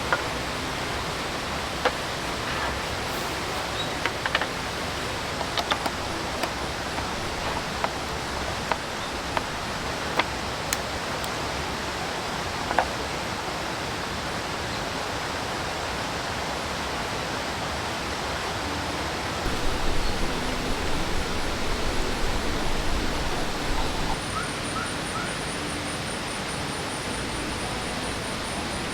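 Rushing water of a stream and waterfall, a steady even hiss, with scattered small clicks. A high, rapid pulsing chirp comes in near the end.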